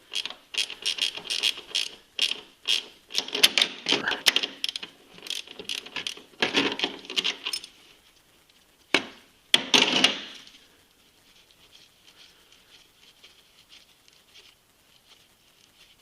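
Socket ratchet clicking in quick runs as it is worked back and forth, loosening the lock nut on a snowmobile's chain case adjuster bolt. Two sharp metal knocks follow about nine and ten seconds in.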